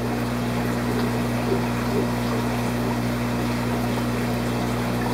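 Steady electric hum of aquarium pumps, with an even rush of moving water over it. It holds level throughout.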